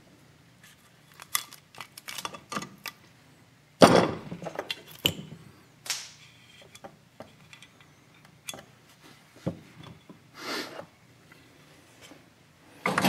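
Metal engine parts being handled as the split crankcase of a Maico 500 two-stroke is taken apart: a run of clicks and knocks with a sharp, loud knock about four seconds in, then scattered taps.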